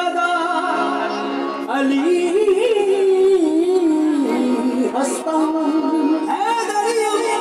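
Live qawwali: a male lead voice sings a long, ornamented melodic line that slides and wavers, over the steady held chords of harmoniums.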